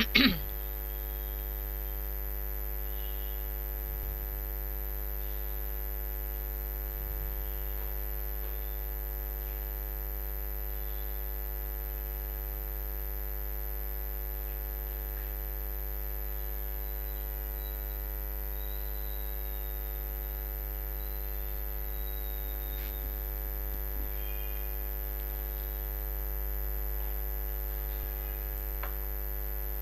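Steady electrical mains hum with a constant high-pitched whine above it, the noise of the recording setup. A short, sharp click about a quarter second in.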